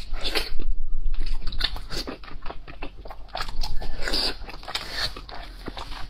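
Close-miked biting and chewing of a piece of braised pork belly: a quick, irregular run of mouth clicks throughout.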